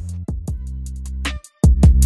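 Background music: a drum beat over sustained bass notes. It drops out briefly about one and a half seconds in, then comes back louder.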